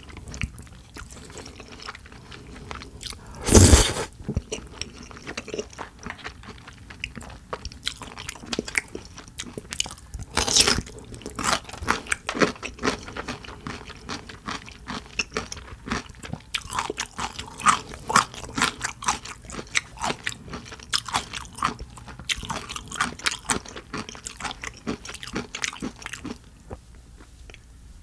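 Close-miked eating sounds from a mouthful of jajangmyeon: wet chewing with crisp crunching, broken by two loud bites about 3.5 and 10.5 seconds in. The chewing goes quiet near the end.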